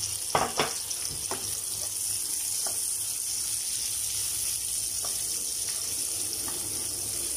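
Sliced onions and garlic sizzling in hot oil in a wok, a steady hiss, with a few knocks of a nylon ladle against the pan as they are stirred; the two loudest knocks come about half a second in.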